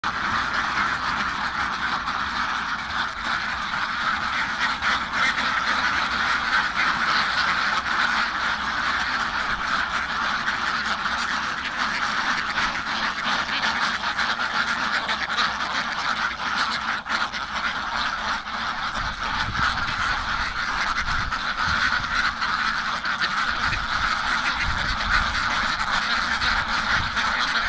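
Many ducks quacking at once in a dense, unbroken chorus. Intermittent low rumbling joins in from about two-thirds of the way through.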